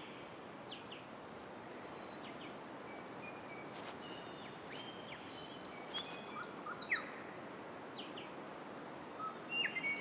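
Forest ambience: scattered short bird chirps and calls over a steady high insect drone and a faint even hiss.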